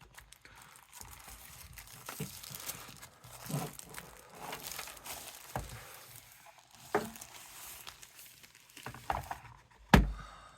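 Plastic packaging crinkling and rustling as it is handled, with scattered light clicks and a sharper knock near the end.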